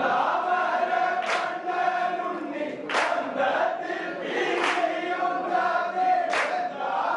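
Many voices singing together in unison, a chant-like group song with held notes. It has a regular sharp beat about every second and a half.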